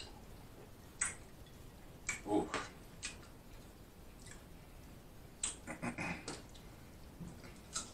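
Faint eating and drinking sounds: a glass of juice swallowed from and set down on a tray, then fingers picking fruit slices from a glass bowl. Scattered light clicks and knocks, with a cluster a little past halfway, among soft mouth noises.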